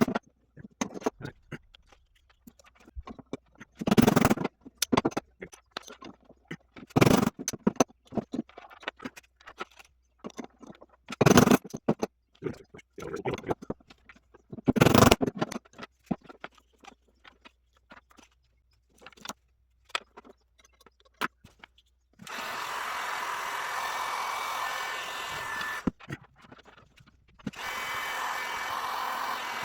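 Bench work with tools and parts: scattered clicks and a few sharp knocks as things are picked up and set down, then a small electric tool runs steadily twice, for about four seconds each time.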